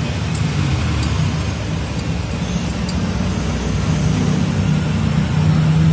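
Mitsubishi Canter truck's four-cylinder diesel engine running with its freshly re-set injection pump, the revs and loudness rising a little in the last couple of seconds.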